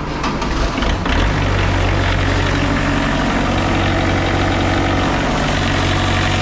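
Diesel engine of a Wood-Mizer LT40 Super Hydraulic bandsaw mill, cold-started after glow-plug preheating: it cranks unevenly for about a second, catches, and settles into a steady idle.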